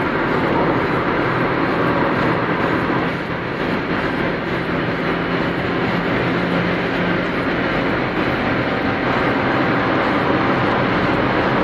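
Honda Civic 1.6 i-VTEC four-cylinder engine running at high revs, around 5,000 to 6,000 rpm at motorway speed, heard inside the cabin over steady road and wind noise. The engine's hum holds steady, then eases somewhat about seven seconds in.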